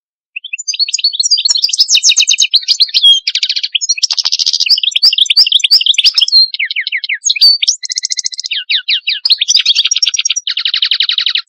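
European goldfinch singing a long, rapid, varied song of twittering notes and fast buzzy trills, starting about half a second in.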